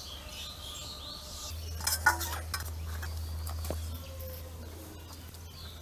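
Metal utensils and stainless steel bowls clinking and scraping, with a few sharp clinks about two seconds in. A steady low hum runs underneath, and birds chirp faintly.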